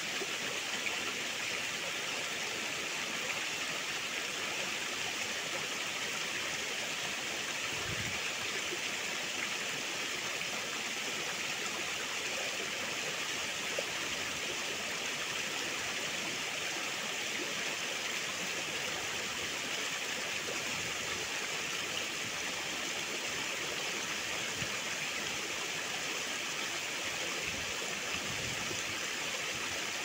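Small mountain stream flowing and splashing over rocks in a low cascade, a steady even rush of water.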